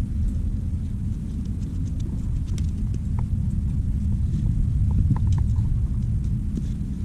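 Steady low rumble on the microphone with scattered light clicks and taps, as from a climber's gear and hands against rock.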